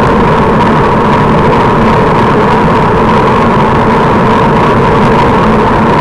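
Steady, loud rush of wind and road noise from travelling along a road, with a constant hum underneath.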